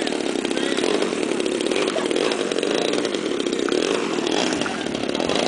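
Small engine of a radio-controlled model aerobatic airplane running steadily on the ground, a continuous buzzing drone with no change in speed.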